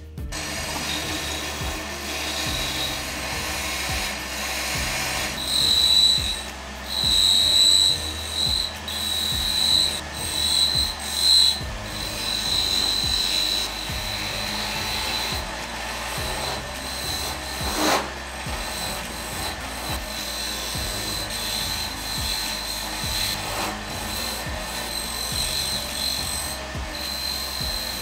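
Wood lathe spinning a small wooden disc while a hand-held turning chisel cuts into its face: a steady scraping cut over the lathe's running hum, louder in a run of strokes between about 6 and 11 seconds in.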